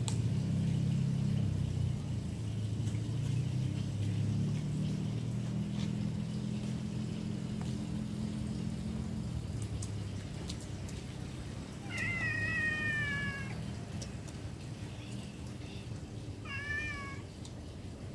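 Cat meowing twice. The first is a drawn-out meow, falling slightly in pitch, about twelve seconds in; the second is shorter and wavering, near the end. A low steady rumble runs under the first half.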